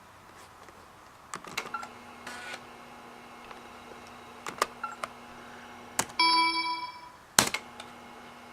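USB floppy drive clicking and ticking as it accesses a disk over a low steady hum, with a short computer chime about six seconds in and a sharp click soon after.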